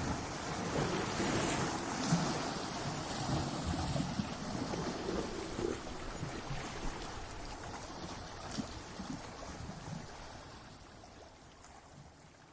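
Ocean waves breaking and washing on a shore, a continuous surf wash with brief louder surges, fading out steadily through the second half.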